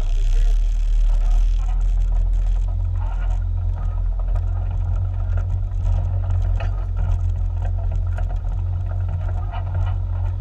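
Side-by-side UTV engine running at low speed with a steady low drone, over scattered knocks and rattles from the machine crawling along a rough dirt trail.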